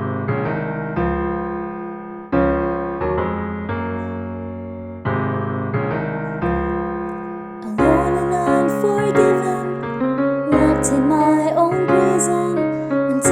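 Instrumental intro to a gospel song: piano chords struck about every two and a half seconds and left to ring. About eight seconds in, more instruments join with cymbals and a melody line.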